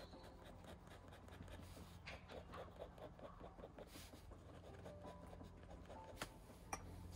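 Faint scratching of a dip pen's metal nib on drawing paper, in quick short strokes as ink lines are drawn, with two sharp clicks near the end over a low steady hum.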